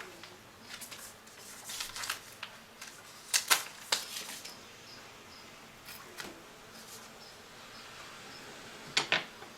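Scattered light clicks and taps of plastic laptop parts being handled while a cable is worked free from the screen assembly, the sharpest clicks about three and a half seconds in and again near the end.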